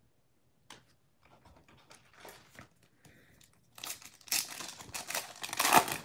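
Foil wrapper of a trading card pack being torn open by hand and crinkling. A few faint handling clicks come first, and the tearing gets loud about four seconds in.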